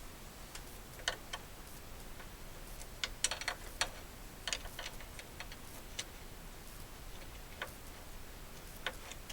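Scattered light metallic clicks and taps of tool parts being handled, as the crank gear install tool is taken off the crankshaft nose, with a small run of quick clicks about three seconds in.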